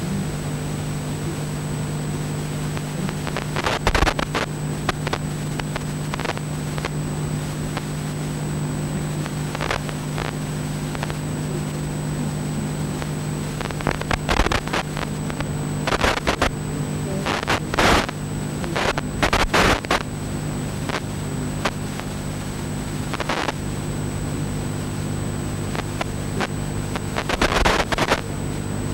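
Steady low electrical hum with a thin high whine above it, broken now and then by short knocks and clicks, clustered near the middle and near the end.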